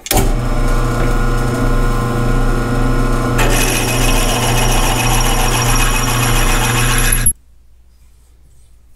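Drill press running with a 25/64 in. twist bit, finish-sizing a bolt hole in a cast radiator tank for a thin-wall KEENSERT thread insert. A steady motor hum is joined about three and a half seconds in by a brighter, higher cutting noise as the bit works the metal. It all stops abruptly a little after seven seconds.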